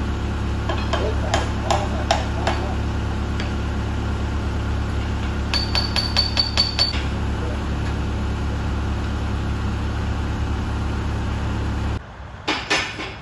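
Hammer striking the steel pin bracket of a loader arm: a few blows, then a quick run of about seven ringing taps, then a few more near the end. Under it runs the steady drone of the loader's engine idling, which stops abruptly about twelve seconds in.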